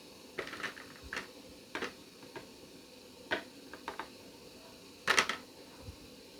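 Kitchenware being handled: a series of about eight light clicks and knocks, as of small puto molds and a plate being set down and moved, with the loudest a quick double knock about five seconds in.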